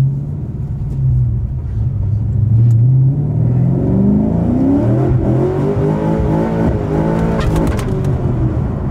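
Car engine heard from inside the cabin, revving up as the car accelerates: the note climbs in pitch from about two seconds in, then holds steady, with a few short clicks near the end.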